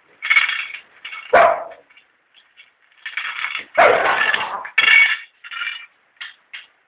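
A dog barking and growling in irregular bursts while a stainless steel bowl clanks and scrapes on concrete, with a few sharp metallic knocks.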